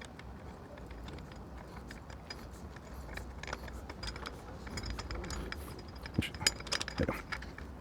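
Small metal clicks and clinks of a nut, bolt and hand tools being handled while a nut is started on an engine-guard mounting bolt. The clicks pick up about halfway through, with a few sharper knocks near the end.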